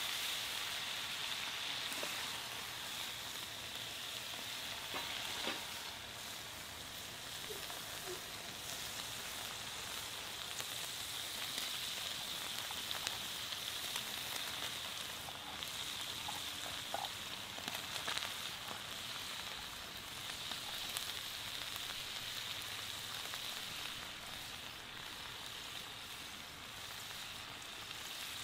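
Beer sauce sizzling and bubbling in a hot cast-iron skillet, a steady hiss with a few short clicks and taps as cherry tomatoes, garlic and chili pieces are dropped in.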